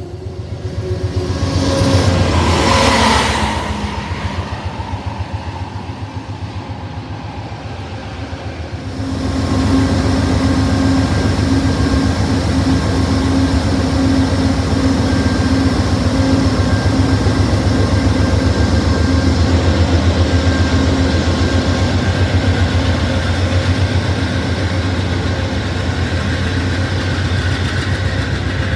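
Passenger train cars rolling past with a rushing swell that fades within a few seconds. Then an Amtrak GE Genesis P42DC diesel locomotive idling at the platform, a steady low throb with a held hum over it.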